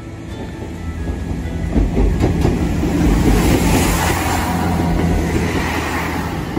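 Local passenger train crossing a steel truss railway bridge close by, its wheels clattering over the rail joints. The sound swells about a second in and stays loud as the carriages pass.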